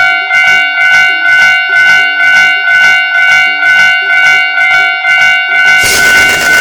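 Cartoon railroad-crossing and train sound effects: a loud, steady horn-like tone held over a regular beat of about two to three strikes a second, with a burst of hissing noise joining about six seconds in.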